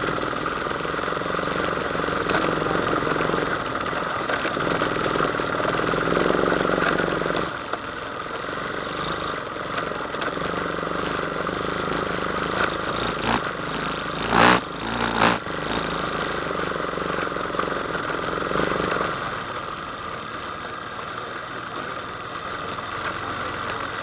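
ATV engine running as it rides a trail, the throttle and load rising and falling, with louder stretches in the first seven or so seconds and again from about ten to nineteen seconds. Two loud, sharp knocks come a little past the middle, under a second apart.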